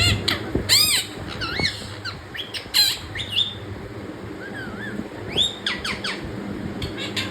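Quaker parrot (monk parakeet) giving a series of short squawks and chirps, the loudest about a second in and near three seconds.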